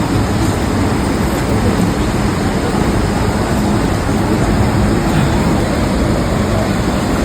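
Rushing water of a waterfall: a steady, unbroken noise that holds one level throughout.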